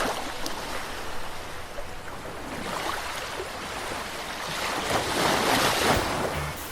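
Caribbean sea waves washing onto the shore, a steady surf hiss that swells into a louder wave about five seconds in.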